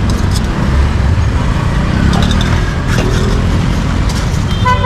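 Street traffic: a steady low rumble of passing motorbikes and cars, with a few faint clicks. A vehicle horn sounds near the end.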